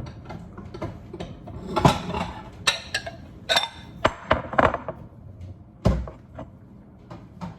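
Kitchen clatter: cookware and utensils knocking and clinking in an irregular run of sharp hits, with a heavier thud about six seconds in.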